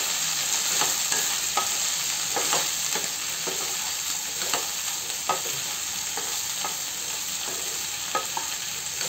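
Chopped okra sizzling in hot oil in a coated kadhai while a spatula stirs it, its strokes scraping and tapping the pan about once or twice a second over the steady sizzle.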